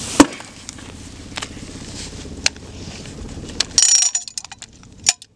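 Metal clicks and clacks of an M32A1 40 mm six-shot revolver grenade launcher being reloaded by hand, its cylinder worked and rounds handled. The loudest is a sharp click just after the start, and there is a brief metallic ringing clatter about four seconds in.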